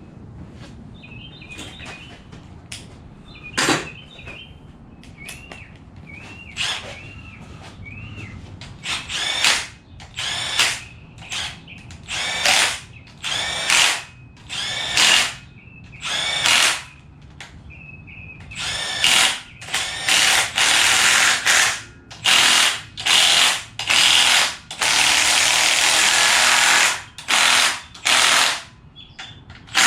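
Handheld power tool run in many short bursts of about a second, spinning bolts down on an engine being reassembled, with one longer run of a couple of seconds near the end.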